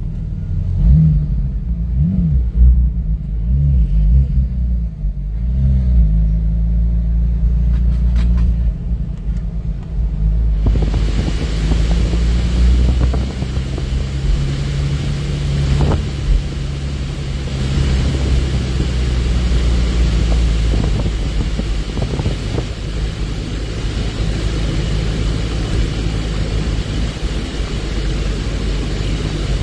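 Porsche GT4's flat-six engine heard from inside the car, a low rumble whose pitch shifts with the throttle. About ten seconds in, a loud steady hiss suddenly sets in over it and stays.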